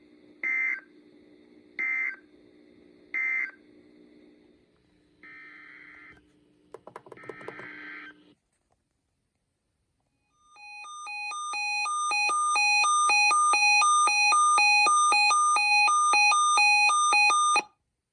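Three short warbling bursts of EAS/SAME end-of-message data tones, about 1.3 s apart, over a faint radio hum. After a brief silence comes an electronic alert beeping at about two beeps a second, which grows louder over the first second or two and then cuts off suddenly.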